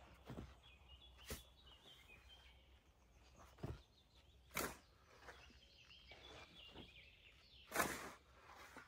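Shovel scraping into and tossing sand or soil, a few scattered strokes with the loudest near the end. Birds chirp faintly in the background.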